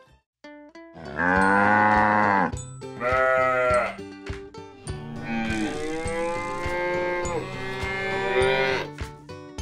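Cows mooing: a run of long, drawn-out moos one after another over light background music.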